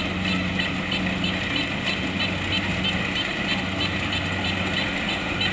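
Kubota DC-70 Plus rice combine harvester's diesel engine running steadily, with a regular high ticking from the machine about four times a second.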